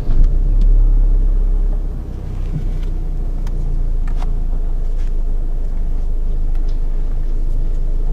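Chevrolet engine idling steadily while the steering is turned, with a few faint light clicks. There is no clunk from the front strut, whose loose top-mount nut has just been tightened.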